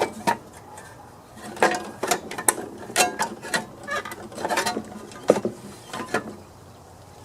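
Irregular clicks and clatters of hands handling the hood and parts of a Briggs & Stratton lawn mower engine, plastic and metal knocking together.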